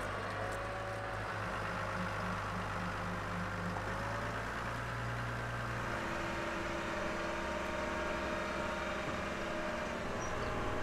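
The boat-moving trailer's engine running steadily under load as it carries the narrowboat down into the water: a low hum with a higher whine over it, both shifting pitch about four and six seconds in.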